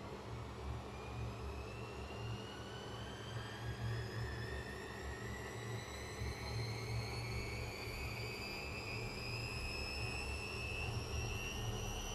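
Gorenje washing machine's drum motor speeding up into a spin, its whine rising slowly and steadily in pitch over a low hum.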